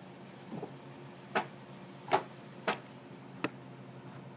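Nile monitor biting and working a rat in its jaws: a faint click, then four short, sharp clicks and knocks at uneven intervals about half a second to a second apart.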